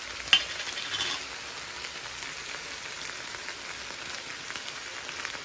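Diced chicken in tikka masala sauce sizzling in a hot frying pan, an even crackling hiss with small ticks. A sharp knock comes about a third of a second in, with a little clatter up to about a second in.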